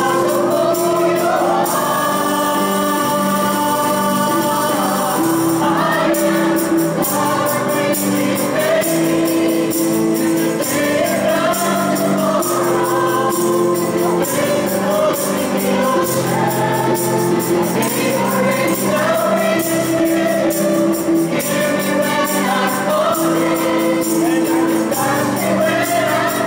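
Mixed choir of women and men singing a worship song in harmony, with guitar accompaniment and a steady jingling percussion beat running under the voices.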